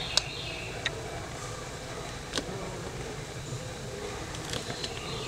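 Steady low outdoor background rumble with a few faint high chirps, broken by four or five sharp clicks, the loudest just after the start.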